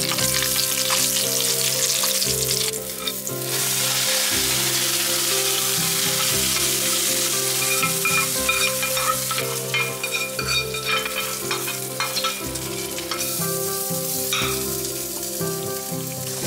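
Mustard seeds, fenugreek, dried red chillies and curry leaves sizzling in hot coconut oil as the tempering is stirred in the pan. Partway through, the hot tempering is poured into the mango curry and goes on sizzling there.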